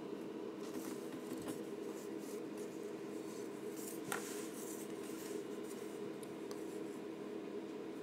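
Faint scratching of a fine-tip ink pen on paper, with a single light click about four seconds in, over a steady low hum.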